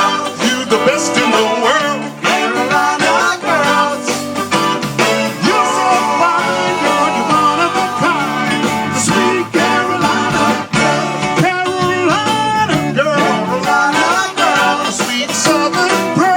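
Live band playing a Motown song, amplified, with singing over the instruments.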